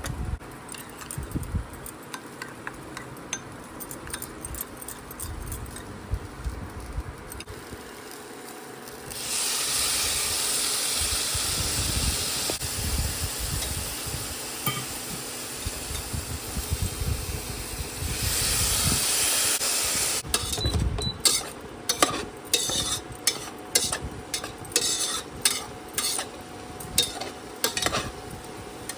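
Food frying in a pan: a loud sizzle starts suddenly about a third of the way in and holds for some ten seconds, then a spatula scrapes and clicks against the pan in quick repeated strokes as the food is stirred.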